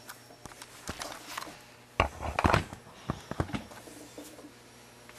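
Handling noise: a scattered series of light clicks and knocks from equipment and test leads being moved about, busiest about two to three and a half seconds in.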